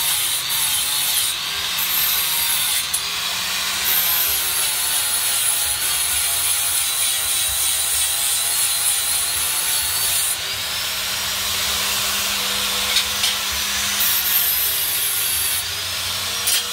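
Electric angle grinder grinding the edge of a steel knife blade, running continuously with a high whine that wavers in pitch as the disc is pressed on and eased off.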